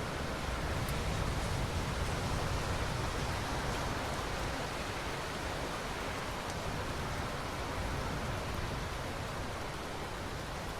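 Steady rain: an even hiss with a deep undertone, a little fuller in the first few seconds, and a few faint drop ticks.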